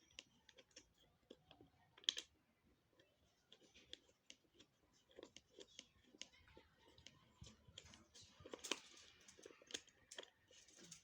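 Faint, irregular clicks, taps and light scraping of plastic desk-fan parts being handled and fitted together, with one sharper click about two seconds in and a busier stretch of clicking near the end.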